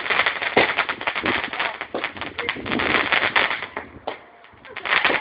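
Fireworks crackling: a dense run of rapid pops and bangs. It breaks off about four seconds in and starts again near the end.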